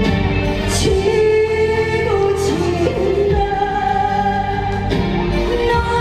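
A woman singing into a microphone over amplified accompaniment with a regular beat, holding long notes.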